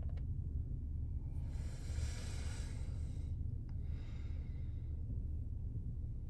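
Steady low rumble inside a car's cabin in slow city traffic, with a soft hiss that swells and fades about a second and a half in, and a couple of faint clicks.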